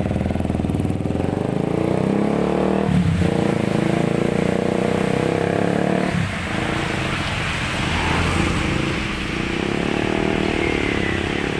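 Kawasaki 250SL single-cylinder motorcycle with an F2racing CLS 20 cm stainless slip-on exhaust pulling away and revving up, with sharp changes in pitch about three and six seconds in as it shifts, then growing fainter as it rides off among street traffic.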